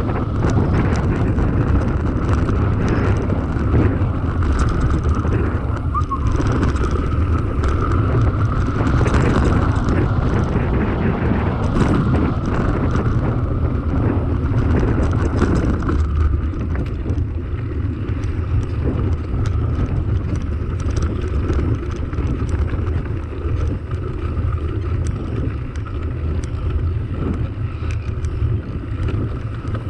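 Wind buffeting the microphone over mountain bike tyres rolling on a dirt and gravel track, with frequent small rattles and knocks from the bike over rough ground. A higher hiss in the mix drops away about halfway through.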